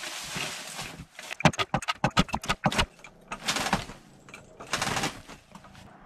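Footsteps crunching through snow and dry leaves, broken in the middle by a quick run of sharp knocks and clatter as wood and tools are handled.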